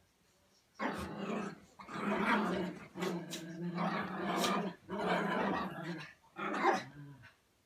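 Small dogs growling in play-fighting as they wrestle, in about five long growls with short breaks, starting about a second in.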